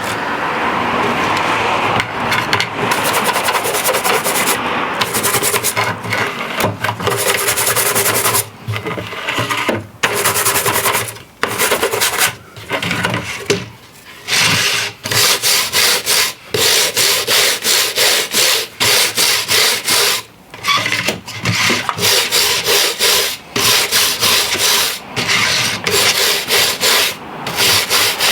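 Scrubbing the rails of a G gauge track section clean: a rough rubbing noise in repeated back-and-forth strokes with short breaks, the strokes coming quicker and more regularly in the second half.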